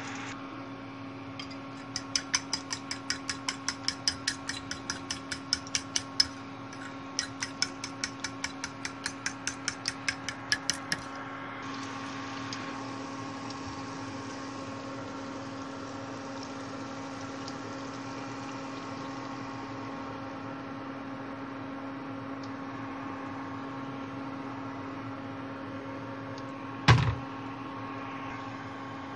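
Asparagus frying in a pan over a steady hum, with a run of quick, even clicking taps, about three a second, for several seconds. Near the end comes one loud splash as beaten egg is poured into the hot pan.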